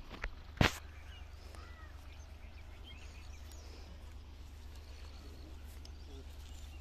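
Faint bird calls, short chirps here and there, over a steady low rumble. A sharp click about half a second in is the loudest sound.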